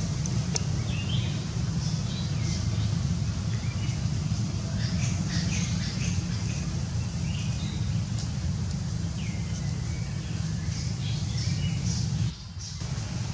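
Forest ambience: a steady low rumble under many short, high bird chirps and calls. The sound drops out briefly near the end.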